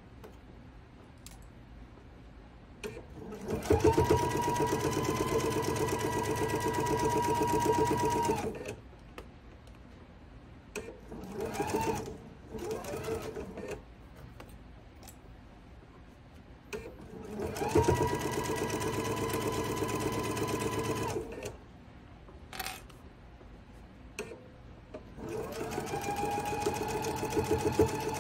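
Electric sewing machine stitching a quilt-block seam in several short runs: three main runs of about four seconds and a shorter burst between, each picking up speed fast to a steady motor whine with the needle's rapid chatter, then stopping. The quiet gaps between runs are the machine stopped short of each pin.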